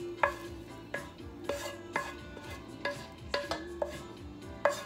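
A stainless-steel skillet and wooden spatula knocking and scraping against a metal mixing bowl as sautéed vegetables are scraped out of the pan. It makes a series of sharp clinks, about two a second, each ringing briefly.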